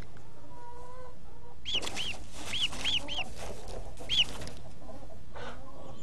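Newly hatched chick peeping: a string of short, high peeps, each rising and falling in pitch, between about two and four seconds in.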